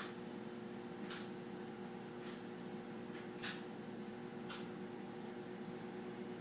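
Quiet room tone with a steady low electrical hum, and faint short hisses about once a second.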